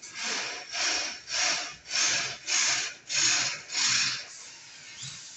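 Welding arc from a TIG welding machine, struck in about seven short hissing bursts roughly two a second, stopping about four seconds in.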